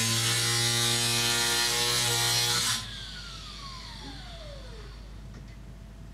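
Power tool cutting sheet-metal stovepipe, loud and steady, cut off abruptly about three seconds in; its motor then spins down in a falling whine over about two seconds. A low steady hum runs underneath.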